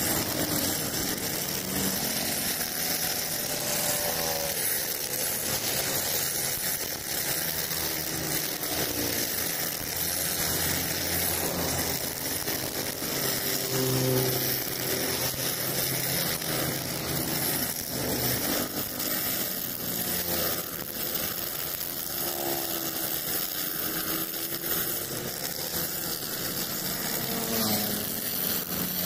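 Four-stroke brush cutter engine running steadily at working speed, its nylon trimmer line whirring as it cuts short grass along a concrete curb.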